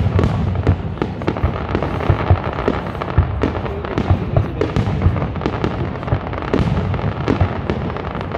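A dense barrage of aerial firework shells bursting, sharp booms and crackles following one another several times a second without a break.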